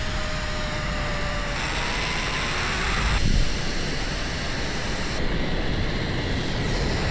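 Wind rushing over the microphone and a zipline trolley's pulleys whirring along the cable, with a faint thin whine that rises in pitch for a second or two about a third of the way in.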